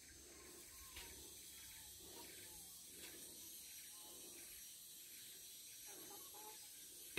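Near silence with faint handling noise as a steel motorcycle rear sprocket is turned in the hand and glue is squeezed onto its rim; a light click about a second in.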